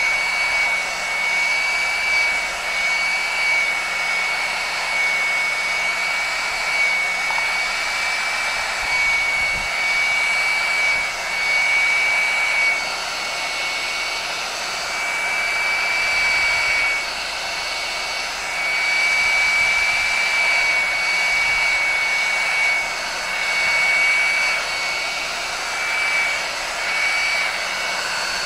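Electric hot-air blower running steadily, a rush of air with a constant high whine, heating heat shrink tubing to shrink it onto a handle. The level swells and dips a little as the nozzle is moved about.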